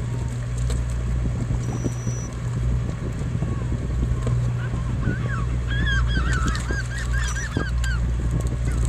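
Seabirds calling in a quick run of short, honking cries from about halfway through, over the steady low drone of the fishing boat's engine. Now and then there is a knock as fish and gear are handled.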